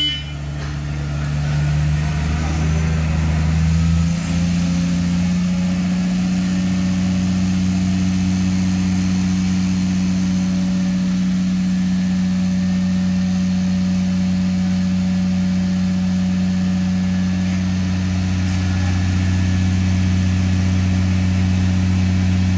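Railway breakdown crane's diesel engine running steadily under load as it hoists a wagon wheelset. It picks up speed, rising slightly in pitch, a few seconds in, then holds an even hum.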